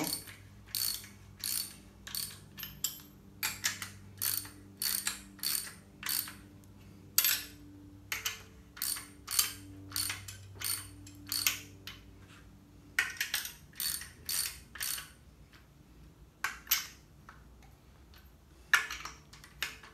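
Hand ratchet clicking in quick runs with short pauses while running down the nuts on an air-cooled VW engine case, snugging them in a crisscross pattern before final torque.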